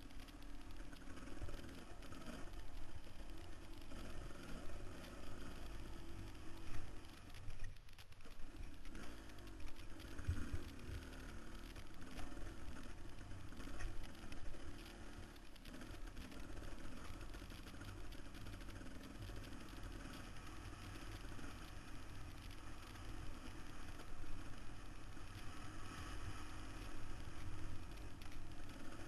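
Dirt bike engine running at speed on a rough desert trail, its note rising and falling with the throttle, with knocks and rattles from the bumps, heard through a helmet-mounted camera.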